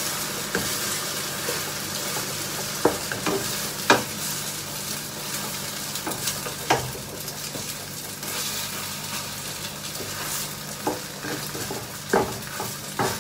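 Beaten egg frying in oil in a nonstick frying pan, sizzling steadily while a wooden spatula stirs and scrapes it, with a few sharp taps of the spatula against the pan.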